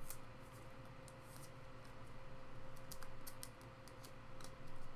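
Light plastic clicks and rustling of a trading card being handled in a clear penny sleeve and rigid top loader, scattered and several close together about three seconds in, over a faint steady hum.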